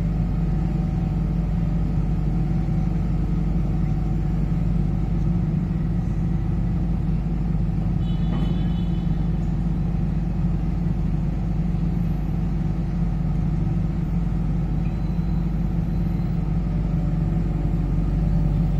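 Diesel engine of a Sunward rotary drilling rig running steadily, a deep even drone. About eight seconds in there is a brief high-pitched tone.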